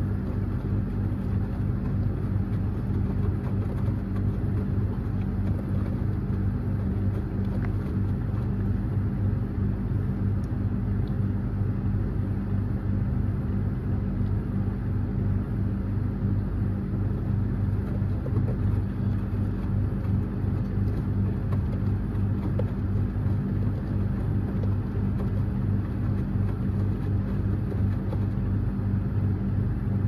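Front-loading washing machine running, its drum tumbling a load of wet bedding, with a steady low hum.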